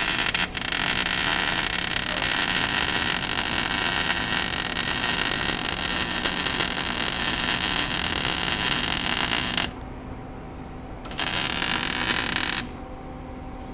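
Arc welder laying a weld bead on steel, a steady crackling sizzle that runs for about ten seconds with a short break near the start, stops, then comes back for a short second bead near the end.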